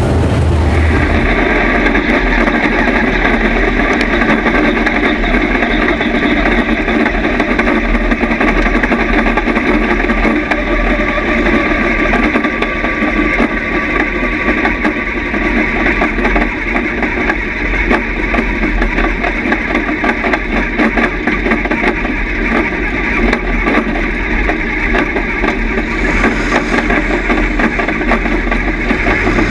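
Dirt late model (Steel Head class) race car's engine running steadily, heard from inside the cockpit, with a change in the sound about a second in as the view switches to the in-car camera.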